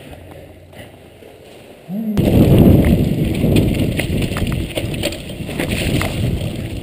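Quiet room tone with a low hum for about two seconds, then a sudden loud rumble as a mountain bike rolls fast down a rocky trail, its tyres and frame rattling and clicking over the stones.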